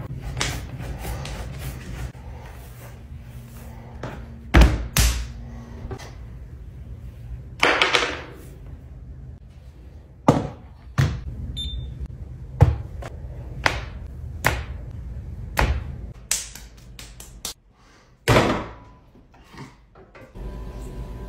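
Wet stoneware-type clay being slammed and thudded down onto a wooden table, about a dozen heavy thumps a second or so apart, as the lump is wedged by cutting and slamming. Near the end the thumps stop and a steadier low running sound sets in as the clay goes onto the potter's wheel.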